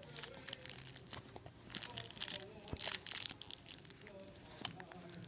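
Close rustling and crackling in irregular short bursts, like fabric or handling noise right at the microphone.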